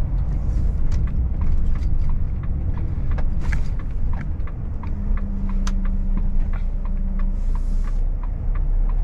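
Cab of a Volvo FH 540 truck under way: steady low engine and road rumble with small irregular rattles and ticks from the cab. A steady hum joins in about five seconds in and fades out two to three seconds later.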